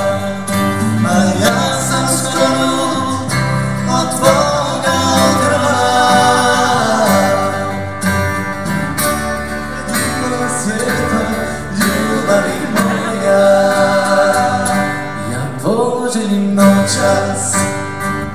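A live acoustic band plays a song: an upright double bass and acoustic guitars, in a country or bluegrass style.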